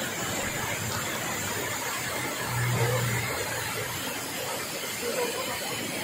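Steady rushing hiss of a tall multi-tiered waterfall pouring down over rock. A short low hum joins in about two and a half seconds in.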